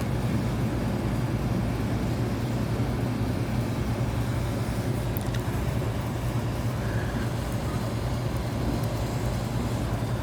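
Steady low mechanical hum, with a faint click about five seconds in.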